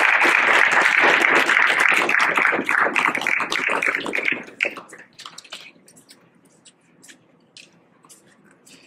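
Audience applauding. The applause dies away about four to five seconds in, leaving a few scattered claps.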